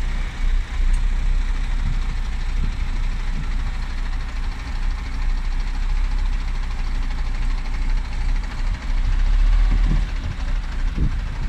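Heavy truck diesel engine running steadily, a deep rumble with a broad mechanical hum over it.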